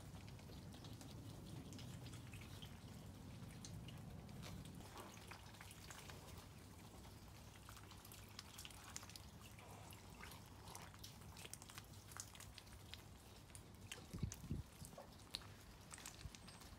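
Faint rainwater dripping: scattered drops tapping one by one, with a few louder soft knocks about fourteen seconds in.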